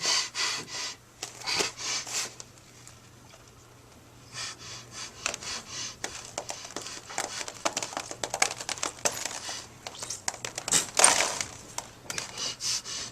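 Coins and small gems dropping and clattering in scattered, irregular sharp clicks. There is a quiet lull about three to four seconds in and a louder noisy burst near eleven seconds.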